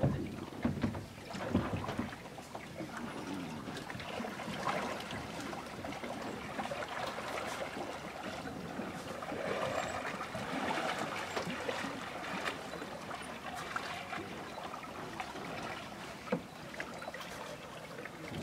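Kayak paddling on calm water: paddle blades dipping and dripping, with water lapping and a few light clicks.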